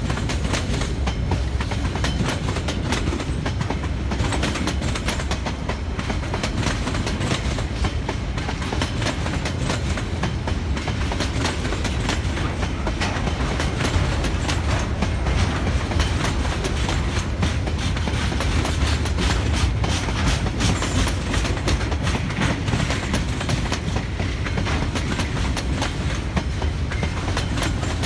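A train rolling past, its wheels clacking over the rail joints above a steady rumble.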